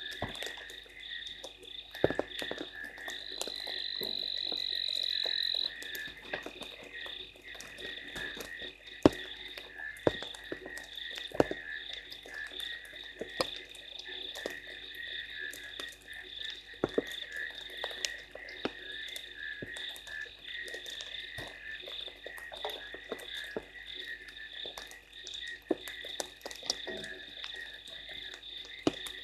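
Frogs calling in a steady pulsing night chorus, with scattered sharp ticks of rain drops throughout. A few seconds in, one high steady note swells for nearly three seconds.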